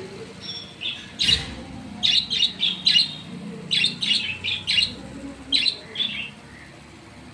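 Pet budgerigars chirping and chattering in quick clusters of high chirps, several clusters one after another.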